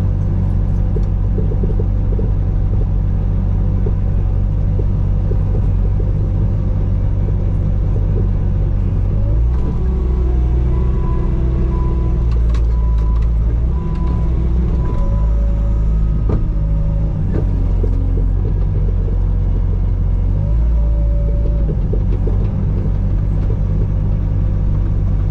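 Bobcat T595 skid steer's diesel engine running steadily and loudly while it grades dirt, its pitch and load shifting about a third of the way in and again later, with thin whining tones coming and going in the middle. The engine sound cuts off suddenly at the end.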